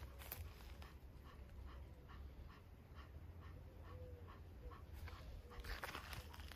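Faint rhythmic panting from a black panther, about three breaths a second.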